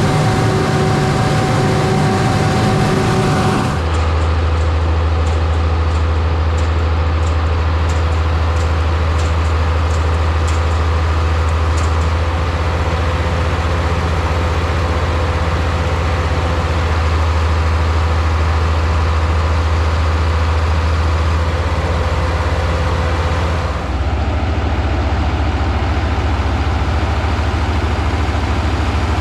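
Large diesel farm machinery engine running steadily with a deep drone. The sound changes abruptly about four seconds in and again near the end.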